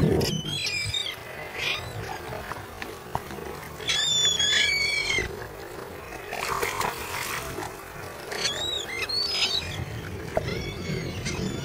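Seabirds calling in short, arched, rising-and-falling cries, in three clusters: near the start, around four to five seconds in, and around nine seconds in, over a low rush of wind and water.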